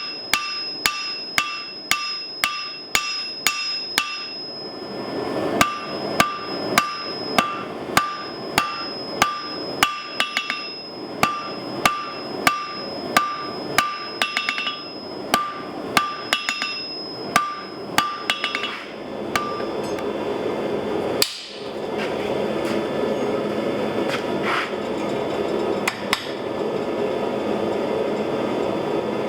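Hand hammer striking on a 160 lb Trenton anvil in a steady rhythm of about two blows a second, each blow leaving a high ringing tone, with short pauses between runs of blows. About two-thirds of the way through, the hammering stops and a steady rushing noise takes over.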